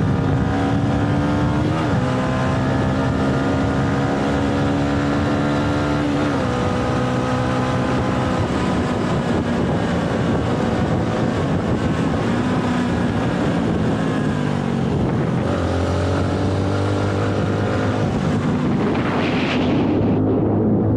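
Motorcycle engine running while riding along the road, heard from on the bike. The engine note holds steady, drops in pitch about two, six and fifteen seconds in, then climbs again toward the end.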